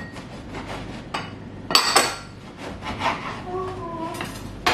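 Metal cutlery knocking and clinking against dishes, with softer scraping and rubbing between. The loudest clink, about two seconds in, rings briefly.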